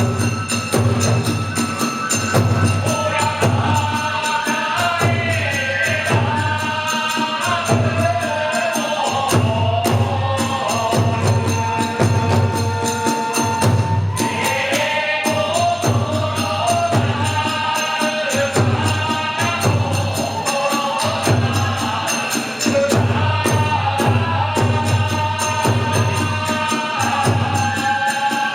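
Kagura music played live: a drum beating a steady rhythm under ringing metal hand cymbals, with a wavering melody line above.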